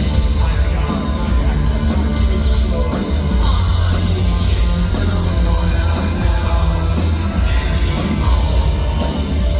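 Live industrial music played loud through a concert PA, with a heavy pounding bass line and drums, distorted by the audience recording.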